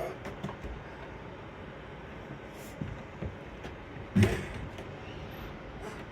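A few light knocks and one loud thump about four seconds in, over a steady low background noise.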